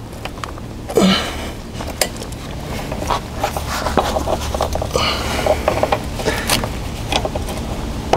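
Metal clinks and scraping as a front loader's hydraulic hose quick coupler is worked by hand onto its fitting, in irregular bursts with louder scrapes about a second in and again near the middle. The coupler is stubborn and slow to seat.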